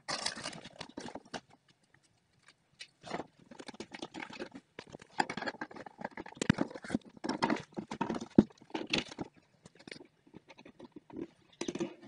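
Irregular clicks, taps and knocks of cistern fittings being handled and fitted, with a short pause about two seconds in.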